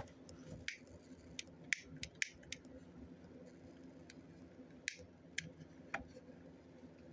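Scattered sharp plastic clicks and taps from handling a butane soldering iron: several close together in the first couple of seconds, then a few more around five to six seconds in.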